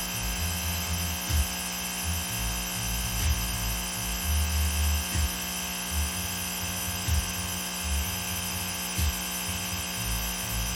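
Steady electric hum of the air supply feeding the buckets during a leak check, with irregular low rumbles and a few faint knocks underneath.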